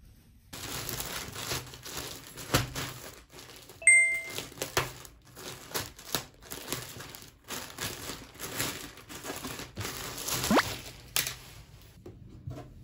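Clear plastic poly bag crinkling and rustling in irregular bursts as clothing is pulled out of it, with a short bright chime about four seconds in.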